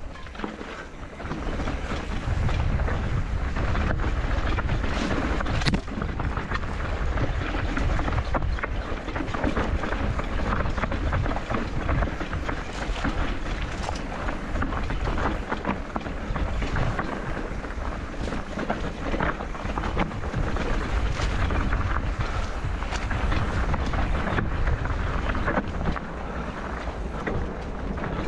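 Wind rushing over a bike-mounted camera microphone while a mountain bike clatters down a rocky technical trail, with frequent sharp knocks and rattles from the wheels and frame hitting rocks and loose stones. The noise picks up about two seconds in.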